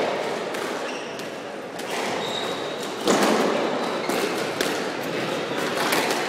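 Scattered thuds of squash balls echoing in a squash court hall, with a louder burst of noise about three seconds in.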